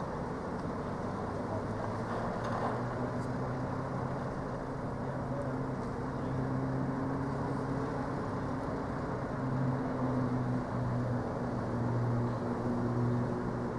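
Refrigerated box delivery van running as it moves slowly across a loading yard: a steady low engine hum that wavers in pitch and grows a little louder in the second half.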